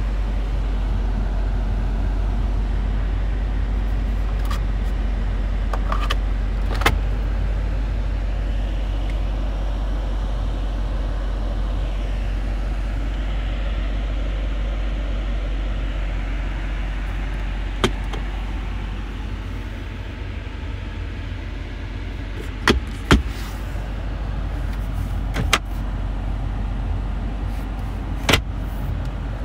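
Steady low idle of the BMW M850i's 4.4-litre V8, heard from inside the cabin, with several sharp clicks scattered through it.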